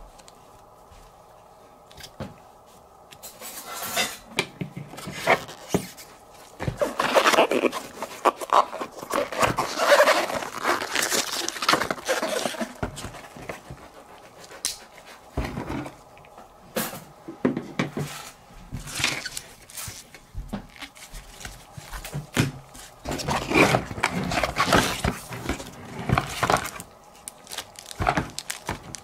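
Gloved hands handling a GoPro Hero 5 camera, its plastic frame and its cardboard box and plastic bag: irregular clicks, rubbing and rustling, busiest in two stretches, over a faint steady hum.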